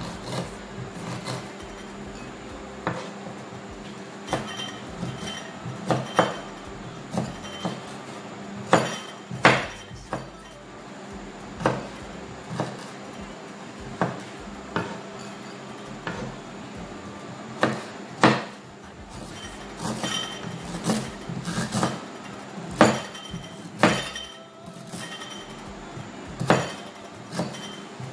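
Kitchen knife chopping fresh ginger root on a wooden chopping board: a string of sharp, irregular knocks as the blade strikes the board, about one or two a second with some quick runs.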